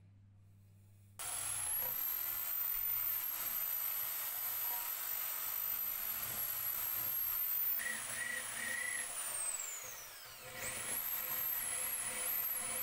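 Handheld high-speed rotary tool starting about a second in and running with a high whine as its bit works inside a threaded hole in cast metal. Its pitch sags and the sound dips around ten seconds in, then climbs back and wavers as the bit is pressed in.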